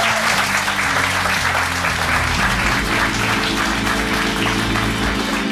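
Studio audience applauding while the show's outro music plays underneath with a steady low bass line.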